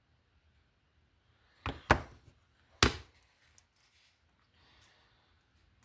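Three sharp knocks of small hard objects on a workbench: two close together, a third about a second later, then a few faint clicks.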